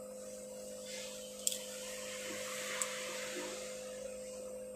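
Two small sharp clicks, about a second and a half and three seconds in, as small phone parts are handled, over a soft rustle and a steady electrical hum.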